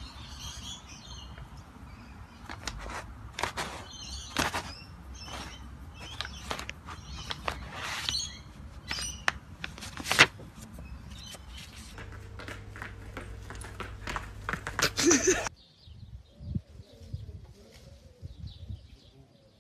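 Paper rustling and crinkling in quick, irregular crackles as a cat paws and shifts on a loose pile of paper sheets and envelopes; it stops suddenly near the end.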